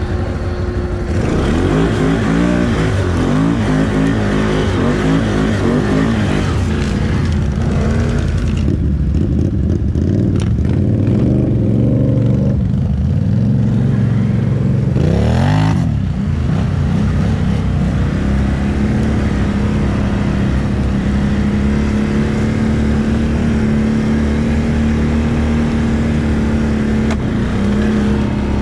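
ATV engine running under load as the quad is ridden, its pitch rising and falling with the throttle. About halfway through there is a sharp rev up, after which the engine holds a steadier, higher pitch.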